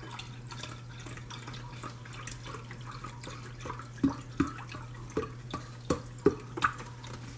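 Chicken broth pouring from a cardboard carton's spout into a glass measuring cup: a steady trickle with irregular small glugs and splashes, which grow sharper in the second half as the cup fills.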